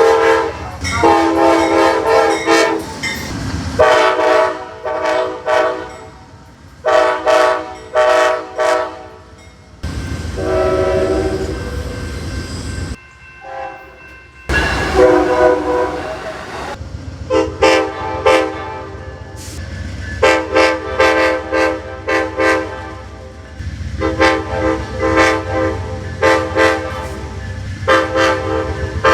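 Amtrak locomotive air horns sounding repeated long and short blasts, each a steady chord of several tones. Partway through, the horn stops for a few seconds while a steady rumble of rolling train is heard.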